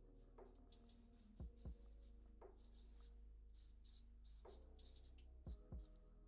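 Faint scratching of a pen on paper as short fur strokes are drawn one after another, with a pair of soft low bumps twice.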